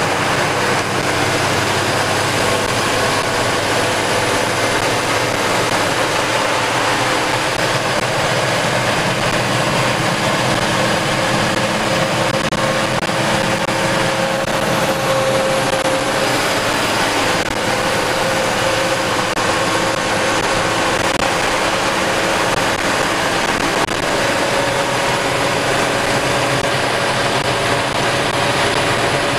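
Ashok Leyland sleeper bus's diesel engine and road noise at highway speed, heard from inside the driver's cabin: a steady, even drone.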